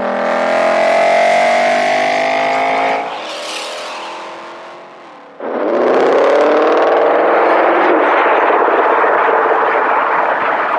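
Ford Mustang Shelby GT500's supercharged 5.2-litre V8 accelerating hard: the engine note rises for about three seconds, falls away quieter, then comes back suddenly and loud about five seconds in, rising again and running on at high revs.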